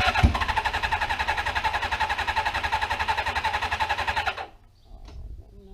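Suzuki GS550 engine cranking on the starter in a quick, even rhythm for about four seconds without firing, then stopping: the engine fails to start.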